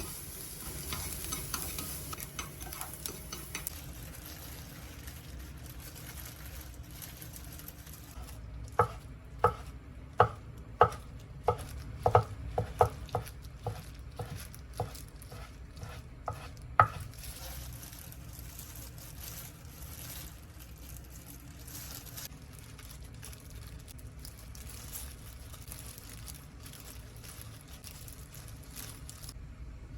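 A utensil stirring food in a pan over a faint steady sizzle. In the middle come about a dozen ringing taps of the utensil against the pan, roughly two a second.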